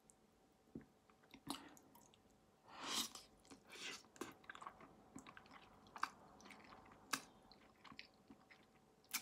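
Faint chewing of noodles with scattered soft mouth smacks and clicks, one louder smack about three seconds in.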